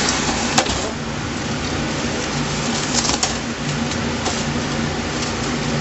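Steady machine hum of kitchen equipment, with a few short crackles and clicks as plastic wrap is pulled and pressed over a pan of ribs.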